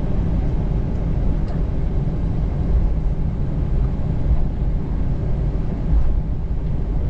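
Steady low rumble inside the cabin of an Airbus A321-211 as it taxis into position on the runway, its CFM56 engines near idle.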